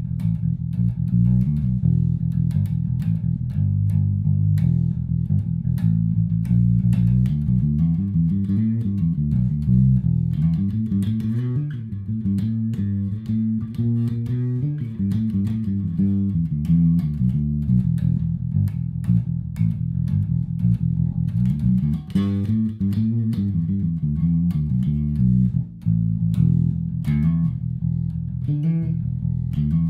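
Solo electric bass guitar improvising on the E blues scale across two octaves: a continuous run of low notes and short phrases, played with hammer-ons.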